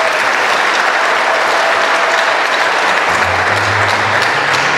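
Large crowd applauding. Low, steady musical tones join in about three seconds in.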